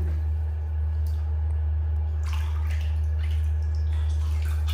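Light splashing and dripping of bath water in a plastic tub as a baby monkey moves in it, a few small splashes in the second half. A steady low hum runs underneath and is the loudest thing heard.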